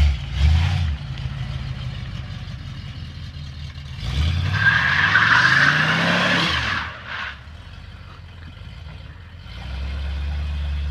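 Oldsmobile 350 Rocket V8 with a rebuilt Quadrajet carburettor idling, then revved once about four seconds in: the pitch climbs for about two seconds with a loud rushing hiss, then drops back to idle, with a smaller blip of the throttle near the end.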